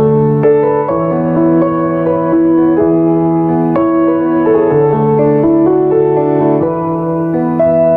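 Slow, gentle piano music with sustained chords changing about every half second to a second, playing out the end of a song.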